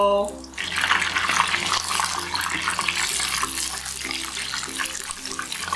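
Cornstarch-coated chicken pieces deep-frying in hot oil, held at 170–180 °C, in a stainless steel saucepan: a dense, steady sizzling and crackling of bubbling oil that starts about half a second in.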